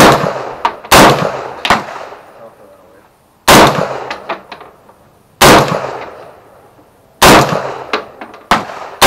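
AR-15-pattern rifle fired in slow single shots: about eight loud reports spaced one to two seconds apart, each with a ringing, echoing tail.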